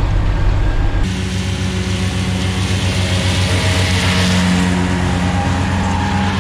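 John Deere tractor engine running steadily under load while its front and side disc mowers cut grass, heard from inside the cab for about the first second. It then passes close by, with a hiss of cutting and thrown grass that swells to a peak about four seconds in and eases off.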